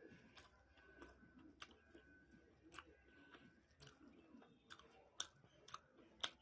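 A person chewing a mouthful of puri with chana dal curry close to the microphone: soft wet chewing with scattered sharp mouth clicks, the loudest about five seconds in.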